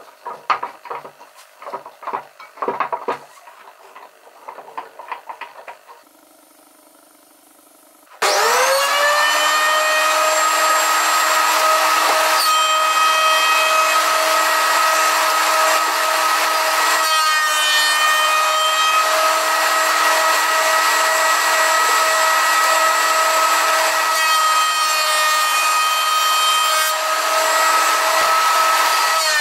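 A few knocks of wood and tools being handled, then about eight seconds in an electric woodworking power tool spins up quickly and runs at a steady high pitch, cutting pine, its pitch sagging slightly a couple of times under load.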